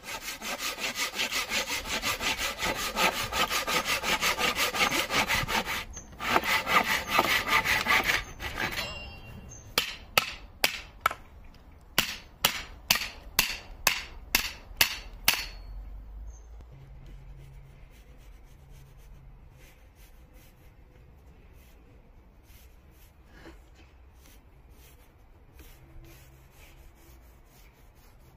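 Hand saw rip-cutting a wooden board with fast, steady strokes, pausing briefly about six seconds in. Then about a dozen sharp knocks, roughly two a second, as blows on the back of an axe drive it into the end of the board to split it. After that only a few faint taps.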